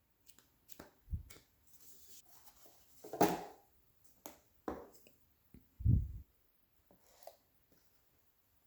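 Handling noises of unboxing packaging and paperwork: a few light clicks, a short papery rustle about three seconds in, and dull thuds about one and six seconds in.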